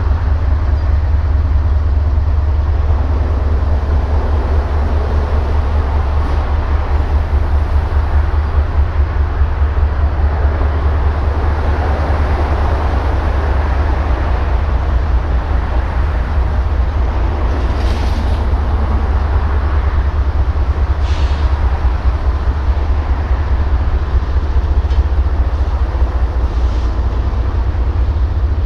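Diesel locomotive engine running steadily with a loud, deep, pulsing rumble.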